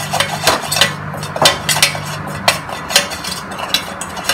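Steel spoon stirring a spice-and-oil paste in a stainless steel bowl, clinking and scraping against the metal two or three times a second.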